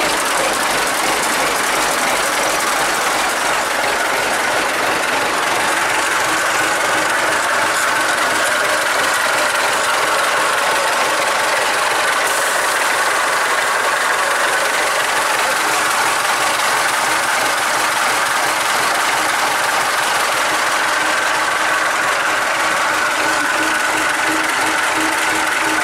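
IFA W50 truck's four-cylinder diesel engine idling steadily.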